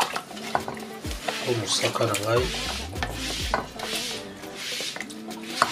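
Several short scraping, rubbing sounds as an opened tin can is handled over a metal cooking pot, under background music with a singing voice and a repeating bass line.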